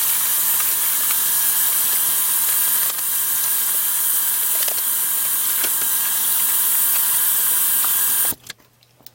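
Water running from a sink tap to rinse a part: a steady hiss that cuts off suddenly about eight seconds in.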